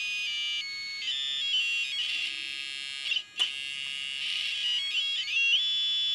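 High, buzzy electronic tones that hold, step and glide in pitch, with one sharp click about three and a half seconds in.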